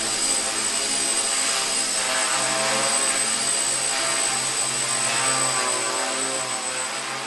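Small quadcopter's electric motors and propellers whirring steadily in flight, their pitch wavering slightly with throttle, over a thin high whine.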